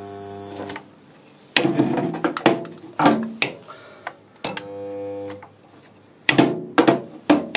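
Irregular hammer blows on sheet-steel car body panels, each strike leaving a brief metallic ring, as the seam is knocked tight to close the gaps before spot welding.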